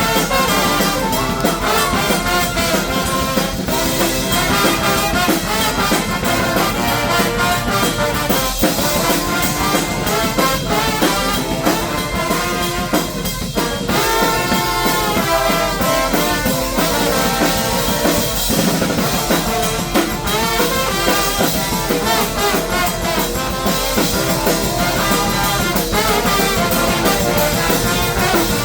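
Brass band playing live: trumpets and trombones over drums keeping a steady beat.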